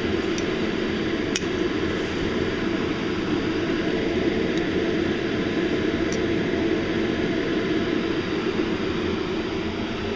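A steady rushing noise, even and unbroken, with a couple of faint light ticks.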